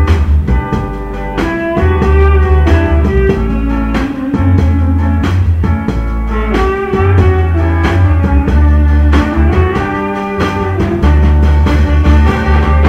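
Loud dance music with a heavy bass line, a steady drum beat and a melody on top.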